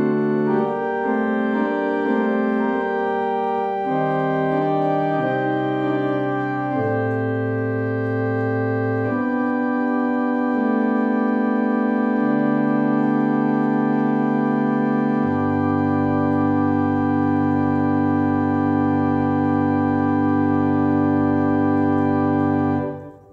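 Church organ played on manuals and pedals: sustained chords over a stepping bass line, then a long held final chord, its bass dropping to a lower pedal note about two thirds of the way through. The chord cuts off sharply near the end.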